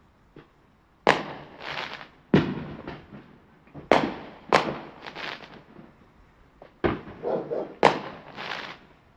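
Fireworks going off: six sharp bangs spread over several seconds, each followed by a trailing rumble.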